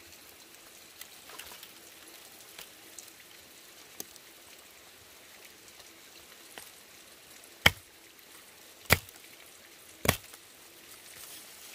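A cleaver chopping through the ends of bamboo strips against a wooden block: three sharp chops about a second apart near the end, after a few lighter knocks.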